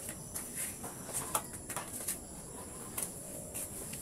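Faint, scattered taps and light knocks: footsteps on a wet concrete floor and a large plastic washtub being handled and picked up.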